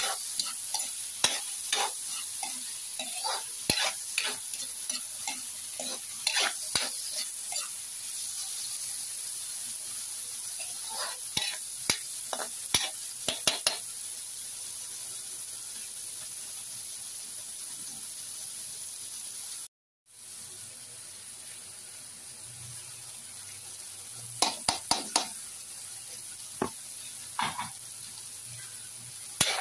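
Diced potatoes and carrots sizzling in oil in a wok, with a steady hiss. A spatula scrapes and clicks against the pan in bursts of stirring, with a brief drop-out about two-thirds of the way through.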